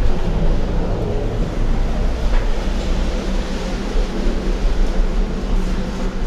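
Gondola cabin running through the lift terminal, heard from inside the cabin: a steady mechanical rumble with a low hum and a few light clicks and rattles.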